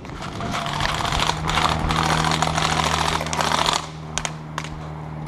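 Airsoft guns firing rapid full-auto bursts, a fast run of clicks and cracks that stops about four seconds in, followed by a couple of single shots. A steady low hum runs underneath.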